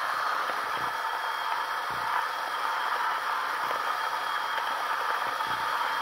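Rechargeable USB electric coffee grinder running steadily, grinding a small load of about two tablespoons of coffee beans; quite quiet, not too noisy.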